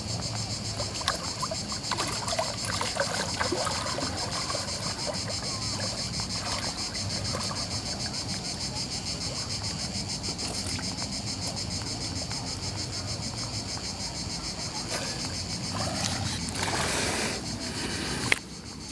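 Steady high-pitched buzzing chorus of cicadas. Water sloshes and splashes in the first few seconds as a large carp is released by hand in the shallows, and a louder rushing noise swells near the end and cuts off suddenly.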